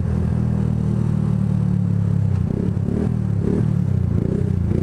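Yamaha YZF-R125 single-cylinder motorcycle engine running under way at steady revs. About two seconds in, the note wavers and breaks up as the throttle changes.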